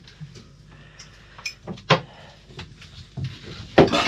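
Kitchen handling sounds in a small galley: several scattered knocks and clinks of crockery and cupboard doors, the loudest near the end.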